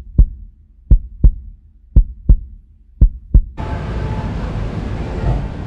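Heartbeat sound effect: paired 'lub-dub' thumps about once a second, with silence between. About three and a half seconds in, it cuts off and gives way to steady, even outdoor noise.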